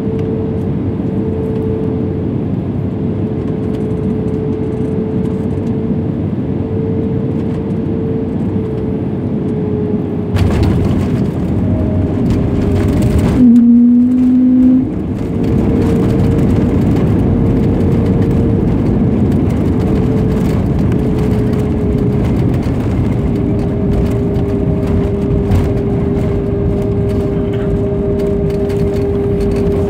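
Cabin noise of an Airbus A320 landing, heard from a window seat over the wing: a steady engine hum with a constant tone, then about ten seconds in a sudden louder rumble as the wheels touch down and the spoilers rise. The rumble and engine roar stay louder through the rollout as the plane slows on the runway.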